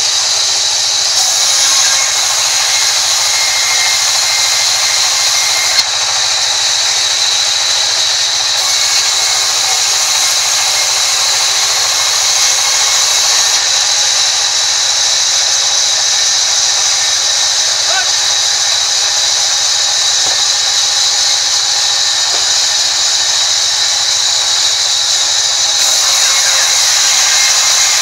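Large sawmill band saw cutting along a wooden plank: a steady, loud, high-pitched whine of the blade running through the wood.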